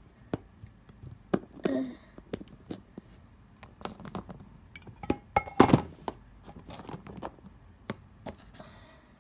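Small plastic toy figurines being handled and moved about, with scattered light clicks and knocks and a louder clatter a little past the middle.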